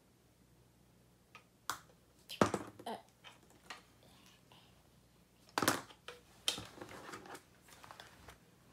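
Hard plastic toy playset pieces being handled and fitted together: a scattering of sharp clicks and knocks, the loudest about two and a half seconds in and again near six seconds.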